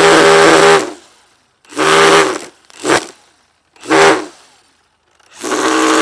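Cordless battery string trimmer, fitted with plastic zip ties in place of trimmer line, run in short trigger bursts: the motor whirs up and winds down about five times, one burst already running at the start and ending within the first second, another starting near the end.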